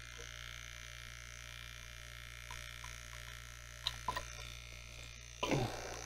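Mini-fridge refrigeration compressor running as a vacuum pump, a steady low hum, with a few light clicks from the brass manifold and hose being handled and a short handling noise near the end.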